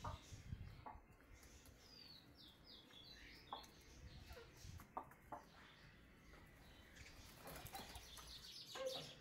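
Quiet yard sounds of game chickens: a few faint high chirps a couple of seconds in, scattered soft clucks and scratches, then a brief flurry of wing flapping near the end.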